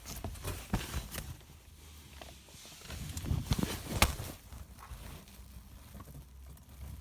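Cats moving about and playing with a cat wand toy: irregular soft taps and thumps, busier about three seconds in, with one sharper knock about four seconds in.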